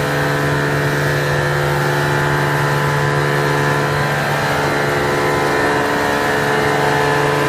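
V-fold tissue folding machine running: a steady mechanical hum with several constant tones, unchanging throughout.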